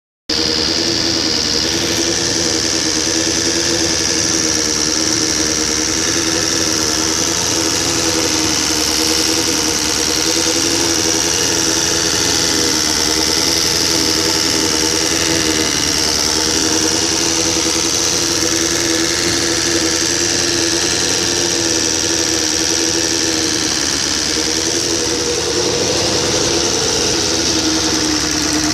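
Suzuki GSX-R750 SRAD inline-four engine running steadily after a rebuild, with an unwanted mechanical noise that the owner suspects comes from the cam chain tensioner, even though the valves have been adjusted.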